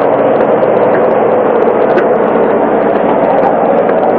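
Steady, loud drone of a squid-fishing ship's engine and deck machinery running.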